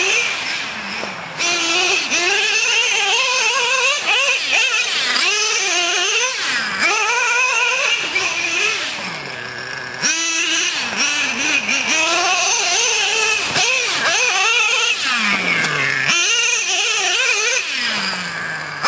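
Traxxas Revo RC monster truck's small nitro engine revving up and down as the truck is driven, its pitch rising and falling over and over, with short drops when the throttle is backed off.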